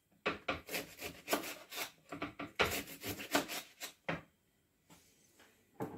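Kitchen knife roughly chopping a leek on a chopping board: quick, uneven strokes about five a second, stopping about four seconds in.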